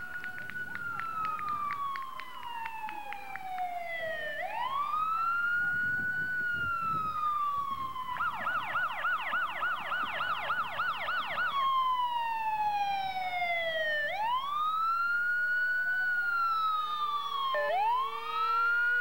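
Emergency-vehicle siren wailing, its pitch slowly rising and falling about every four seconds. Midway it switches to a fast yelp, about three or four warbles a second, for a few seconds, then goes back to the wail.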